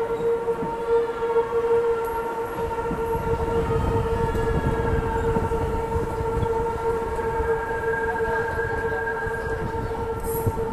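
Hankyu 9000 series electric train rounding a tight curve at low speed: its wheels squeal on the rail in one steady tone over the rumble of wheels on track.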